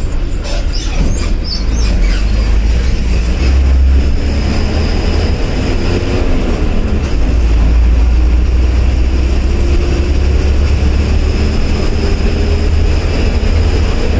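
Diesel bus engine running under way, heard from inside the driver's cabin as a loud, deep rumble with the body rattling. Its pitch rises slowly through the second half as the bus gathers speed. A few short high squeaks come about a second in.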